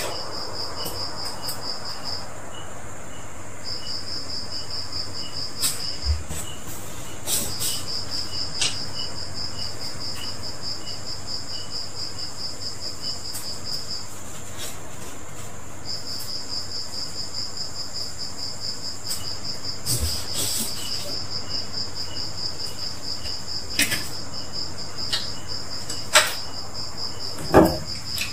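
A cricket trilling in long runs of rapid pulses, broken by short pauses, with a few scattered knocks and clicks that are loudest near the end.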